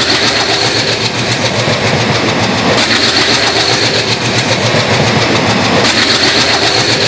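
A passenger train passing at speed, its wheels running loud and steady on the rails.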